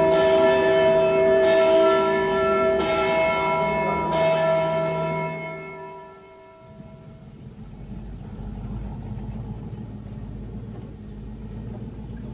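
Church bells ringing, a fresh stroke about every second and a half, with the ringing dying away about six seconds in. A steady low rumble of a truck engine follows.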